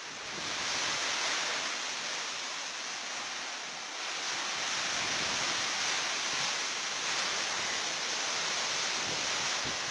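Storm wind and heavy rain lashing through trees: a steady loud rushing that swells about half a second in and again about four seconds in, with gusts buffeting the microphone.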